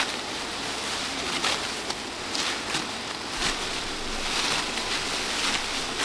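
Ripe rice stalks rustling and swishing as they are harvested by hand, a steady rustle with short sharper swishes every second or so.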